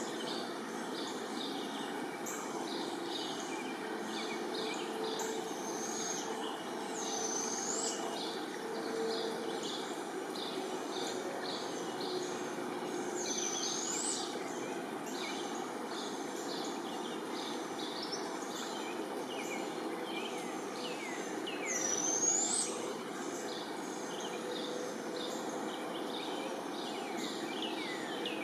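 Small birds chirping and calling over steady background noise, with a high up-curving call every several seconds and a few quick falling whistles near the end.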